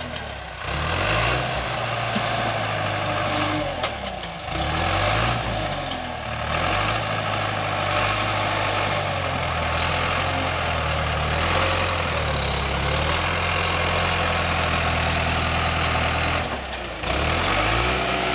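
Bulldozer's diesel engine working under load while digging, its pitch dropping and climbing again several times as the load comes and goes.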